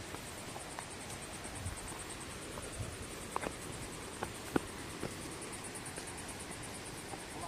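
Insects chirping in a steady, high, evenly pulsing chorus, with a few faint scattered clicks and taps.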